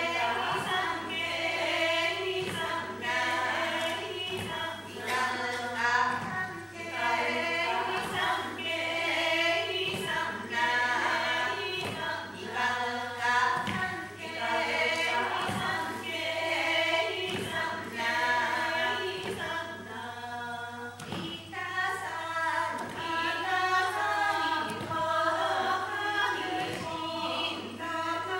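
A small group of Ainu women singing an unaccompanied seated song (upopo) in several overlapping voices, with dull thumps beating time every second or two. A steady low hum runs underneath.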